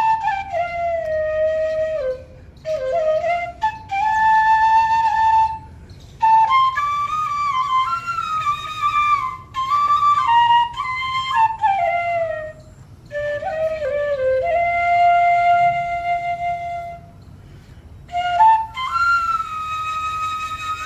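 Background music: a solo flute playing a slow melody of held notes that slide up and down between pitches, in phrases separated by short pauses.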